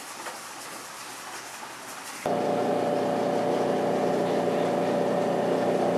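Metallographic polishing machine's motor running with a steady, even hum, starting suddenly a little over two seconds in. Before it, only a faint hiss.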